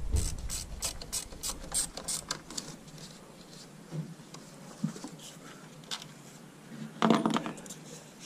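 Ratchet wrench clicking in quick runs for the first two to three seconds while fittings are undone on a diesel engine's EGR cooler pipe, followed by scattered light knocks and a short louder noise about seven seconds in.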